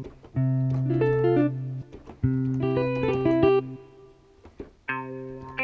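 Yamaha MX49 keyboard playing a guitar patch: a held low note with shorter plucked notes above it, in two phrases, then a short pause before the playing starts again near the end.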